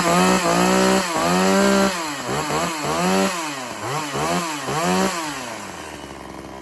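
Two-stroke chainsaw running at high revs, then its throttle is blipped so that it revs up and drops back several times. It falls away toward idle near the end.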